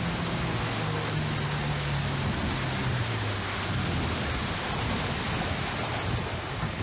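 A boat's motor humming low, its pitch sinking and fading out over the first three seconds, under a steady rushing hiss.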